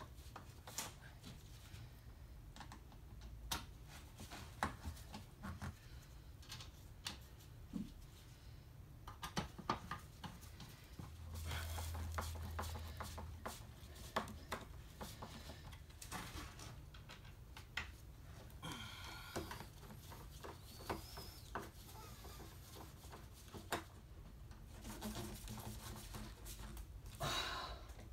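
Hand screwdriver driving screws into a rail-car window's aluminium frame: faint, scattered clicks and taps of the metal tip on screw heads and frame.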